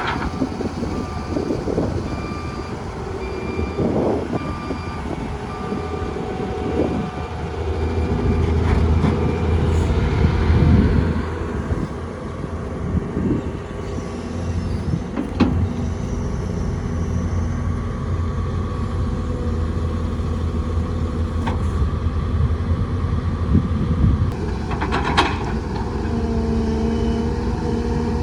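Diesel engines of an excavator and dump trucks running steadily, louder for a few seconds near the middle. A backup alarm beeps repeatedly over the first several seconds, and a few sharp knocks come later.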